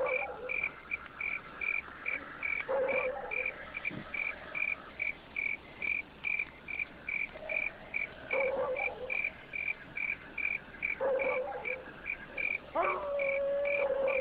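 Cricket chirping steadily in an even rhythm, about three chirps a second, with a few faint short lower sounds now and then.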